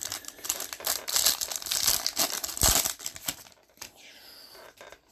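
Foil wrapper of a 2020 Topps Inception baseball card pack being torn open and crinkled by gloved hands. The dense crackle stops about three and a half seconds in, leaving only faint handling of the cards.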